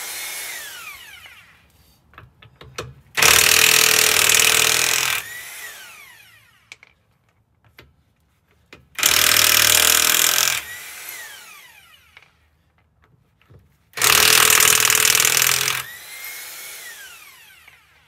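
Corded electric impact wrench hammering lug nuts loose off a car wheel in three bursts of about two seconds each. After each burst the motor whines down as it spins to a stop.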